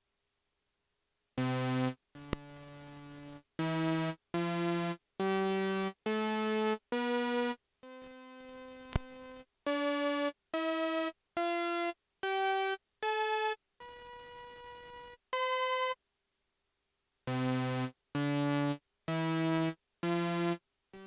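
Roland Jupiter-6 analog synthesizer playing a series of short single notes that step mostly upward in pitch. Three longer notes come out much quieter and thinner than the rest, with a click at the start of two of them: the sound fault being shown.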